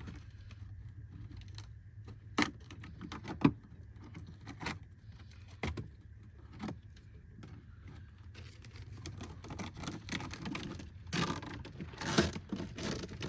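Metal items being handled: scattered short clinks and knocks, with a denser run of them near the end, over a low steady hum.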